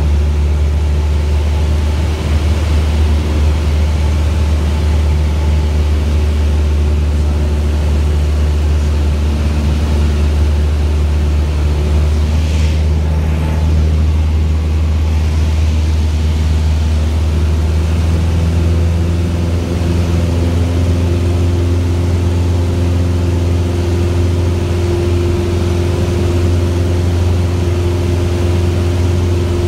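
Steady drone of a Cessna's single piston engine and propeller, heard inside the cabin in flight. A brief hiss rises about thirteen seconds in, and the engine note shifts slightly about eighteen seconds in.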